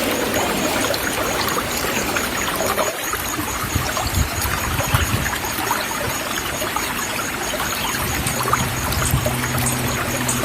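Stream water flowing steadily, with scattered small splashes.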